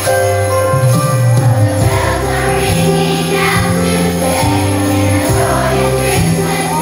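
Children's choir singing a Christmas song over an instrumental accompaniment with jingling bells and a moving bass line.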